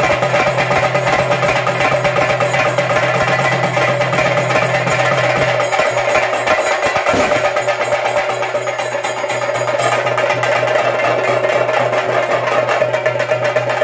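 Theyyam chenda drumming: several cylindrical chenda drums beaten with sticks in a fast, unbroken stream of strokes.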